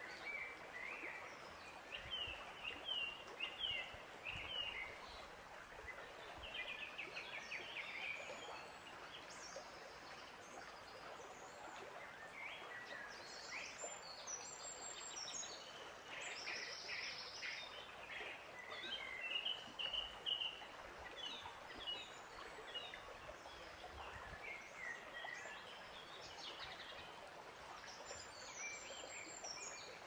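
Several birds chirping and singing on and off over a soft, steady background hiss of outdoor ambience.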